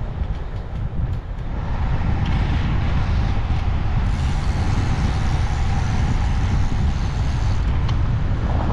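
Wind buffeting the microphone of a camera riding along on a moving road bike: a steady low rumble. A hissing road noise builds about two seconds in and falls away shortly before the end.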